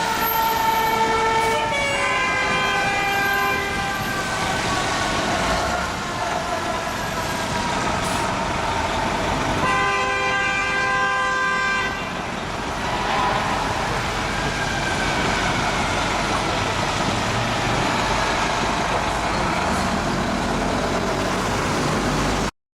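Fire engine responding with its siren wailing, rising and falling in pitch, and long steady horn blasts, one at the start and another about ten seconds in. The sound cuts off suddenly near the end.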